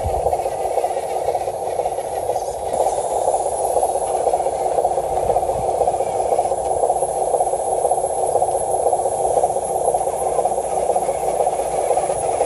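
Radio-controlled scale dump truck's electric motor and gearbox whining steadily as it drives loaded with dirt.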